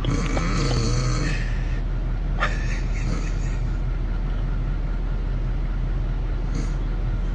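Snoring: a long noisy snoring breath in the first two seconds, a brief click a little later, and a steady low rumble underneath.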